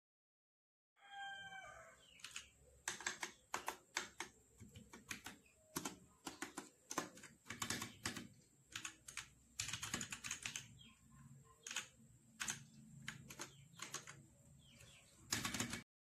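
Keys of a mechanical keyboard with plastic keycaps being typed on: irregular sharp key clicks in quick runs, with short pauses between them. A few short chirping tones are heard about a second in, as the sound begins.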